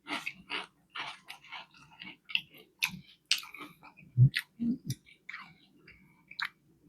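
Close-miked chewing of a fish fillet sandwich: irregular wet mouth clicks and smacks, with a couple of low thuds about four seconds in.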